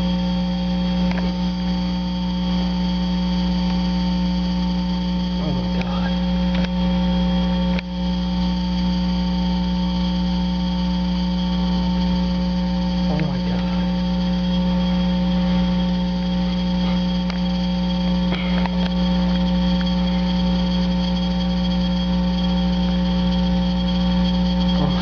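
Steady, loud electrical buzz made of several constant tones, like hum on an audio line, with no speech over it.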